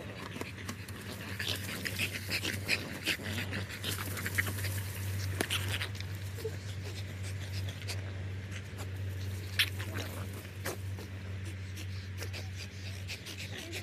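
French bulldogs playing, with short, irregular scuffling and breathing noises over a steady low hum.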